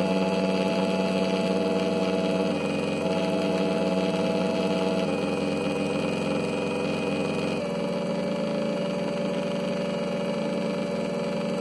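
Electric radiator cooling fan motor running under pulse-width-modulated control, a steady hum whose pitch steps down a few times, most clearly about two thirds of the way in, as its duty cycle is lowered from 100%.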